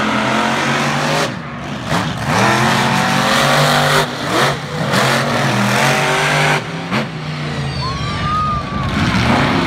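Two monster truck engines revving hard as the trucks race off. The pitch climbs and falls again and again with throttle and shifts, with short dips in between. A brief high squeal sounds about eight seconds in.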